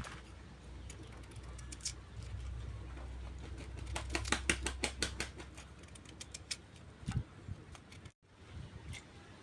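A quick run of sharp taps from a kitchen utensil around the middle, followed by a few scattered knocks, over a low rumble.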